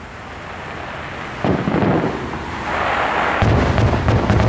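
Aerial fireworks shells bursting overhead. A single bang comes about one and a half seconds in, then a rapid run of deep booms rumbles through the last second.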